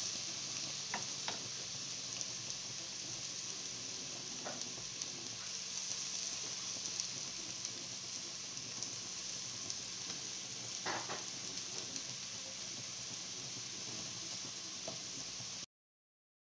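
Rice-stuffed beef intestines sizzling steadily as they fry in oil in a pan. There are a few short knocks as the pieces are turned with a wooden spoon. The sound cuts off abruptly near the end.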